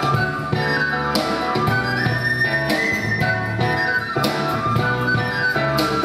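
Live instrumental trio: a flute melody over grand piano chords, with a drum kit and cymbal strokes about every second and a half.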